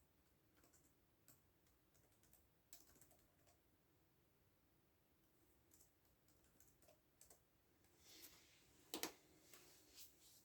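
Faint computer keyboard typing: irregular keystrokes in short runs with pauses between them. A louder keystroke, perhaps the space bar or enter key, comes about nine seconds in.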